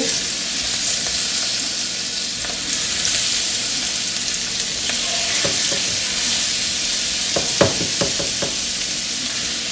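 Shrimp frying in hot butter and oil, a steady sizzle, with a few light knocks about three-quarters of the way through.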